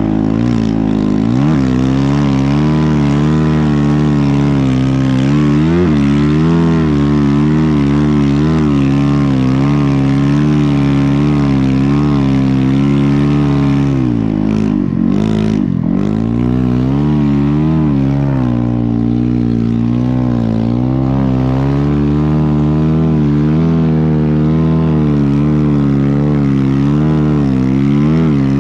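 Dirt bike engine of a snow bike conversion running under load through deep snow, its pitch wavering with the throttle; about halfway through it briefly drops off, then picks back up.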